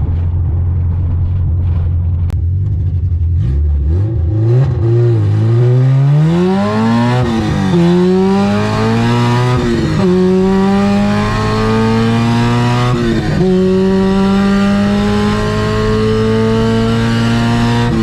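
Car engine idling, then pulling away and accelerating through the gears. The revs climb in each gear and fall at upshifts about 7, 10 and 13 seconds in, with another shift right at the end.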